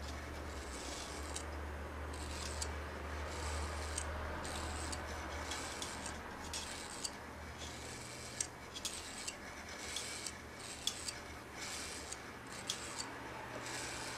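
Super 8 film being wound through a film viewer: uneven scratchy rasping with small clicks, over a low hum that fades out about halfway through.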